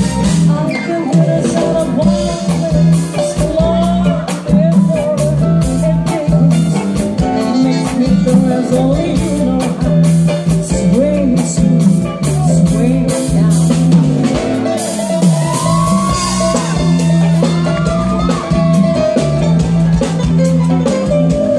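A live band playing: a woman singing into a microphone over electric guitar, bass and drum kit, heard loud through the stage loudspeakers.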